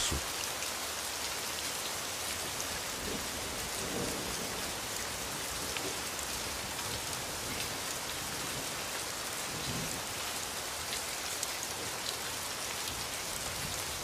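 Steady rain falling: an even, unbroken hiss of drops.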